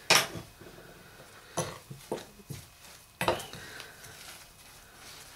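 Metal spoon stirring a dry flour mixture in a glass bowl, with a scraping rustle and several sharp clinks against the glass, the loudest at the very start and another about three seconds in.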